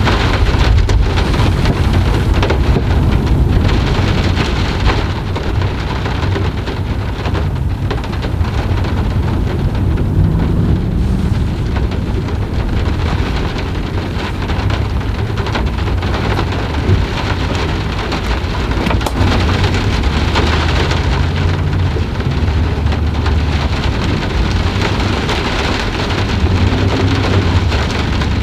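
Steady rain falling, with a continuous low rumble of thunder underneath.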